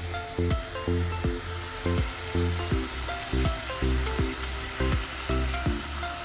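Food sizzling and frying in hot oil in a pan, under background music with a regular beat.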